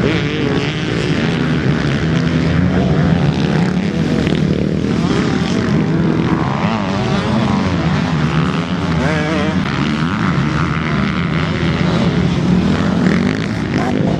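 Several motocross bikes running hard and revving as they ride past one after another, their engine pitch rising and falling with the throttle and gear changes.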